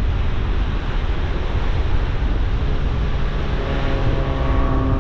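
Surf breaking on a shingle beach, with wind buffeting the microphone. About three seconds in, the steady drone of a low-flying aircraft's engine fades in and keeps building.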